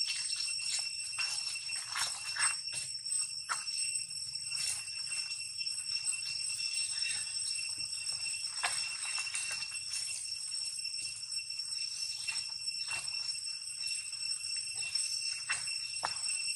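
Insects droning steadily at a high pitch, a constant ringing tone with fainter higher overtones, with scattered short clicks and rustles, as of movement in dry leaf litter.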